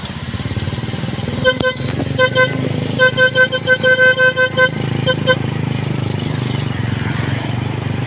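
A vehicle horn honked in a long string of short toots, coming quickest about three to four and a half seconds in, over the steady low hum of a vehicle engine running along the road.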